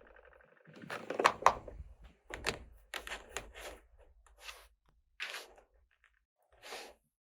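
Small plastic toy pieces being handled, opened and set down: a string of irregular clicks and knocks, the loudest two coming close together about a second in.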